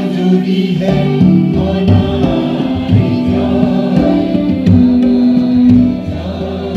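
A mixed choir of women and men singing together into microphones, carried over a PA system, with sustained keyboard accompaniment underneath.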